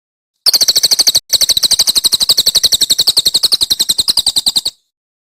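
A songbird singing a fast trill of evenly repeated sharp notes, about eleven a second, high-pitched, with one short break about a second in.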